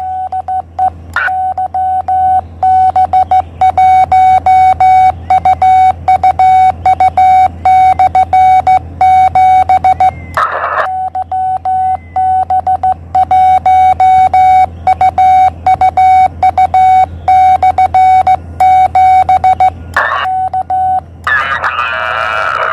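Morse code (CW) from a Yaesu portable HF transceiver, a steady mid-pitched tone keyed on and off in dots and dashes, sent by hand on a Morse key. Short bursts of radio noise break in about ten and twenty seconds in, and a warbling signal takes over near the end, all over a low hum.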